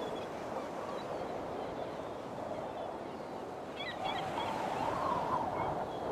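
Water lapping along the shore with scattered seabird calls, including a cluster of short high chirps about two-thirds of the way through.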